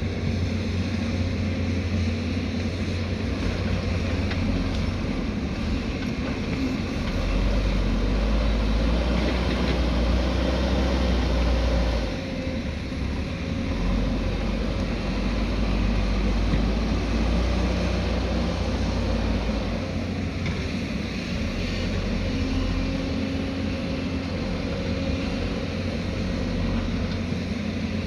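Diesel engine of a heavy earthmoving machine (backhoe loader or excavator) running steadily as it works. Its low rumble grows heavier twice, from about a quarter of the way in until near the middle and again just after, as the engine takes on load.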